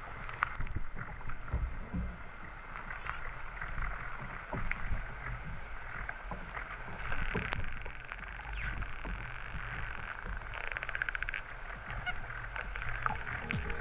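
Water washing and slapping against the hull of a Hobie Tandem Island sailing kayak under way, with frequent low thumps and clicks. A short, rapid buzzing rattle comes about ten seconds in.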